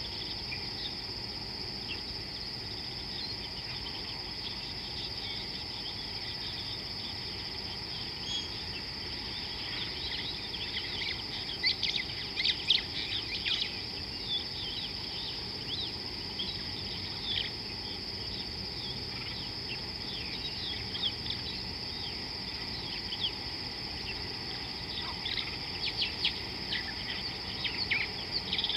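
A steady, high insect trill with scattered bird chirps over it. The chirps come in quick flurries about twelve seconds in and again near the end.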